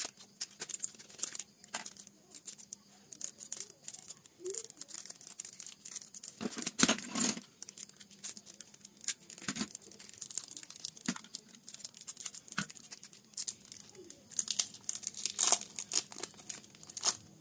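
A small cardboard box and the clear plastic wrapper of a kneadable eraser being opened by hand: dense irregular crinkling and tearing, louder about seven seconds in and again near the end.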